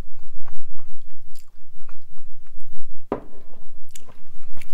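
Close-miked chewing of homemade pizza: wet mouth clicks and lip smacks in a steady, quick rhythm of several chews a second.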